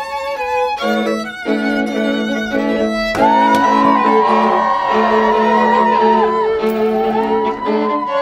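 Violin music: short separate notes at first, then from about three seconds in a long held bowed melody over a steady low note.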